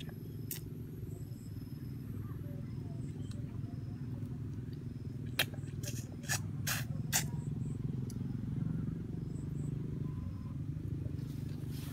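A boy eating small forest fruits: close chewing and mouth sounds, with a few sharp clicks about halfway through, over a steady low rumble.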